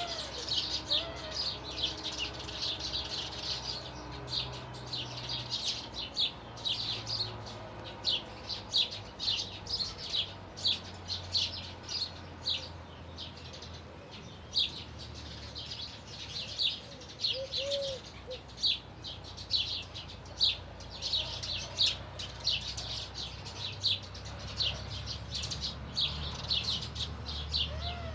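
Small birds chirping busily, a dense run of quick high-pitched chirps with a few short lower warbled notes, over a low steady hum.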